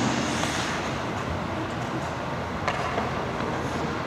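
Steady background noise of an indoor ice rink, with one brief sharp knock about two and a half seconds in.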